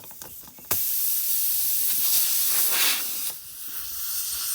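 Pressurised air hissing out of a puncture in a pickup truck tire. It starts suddenly about a second in after a few light clicks, is loudest for a couple of seconds, dips, then keeps going.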